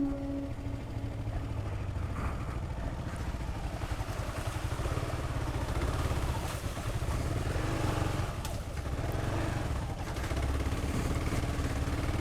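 Dual-sport motorcycle engine running steadily while riding a dirt trail, with a continuous low rumble and a few light clatters.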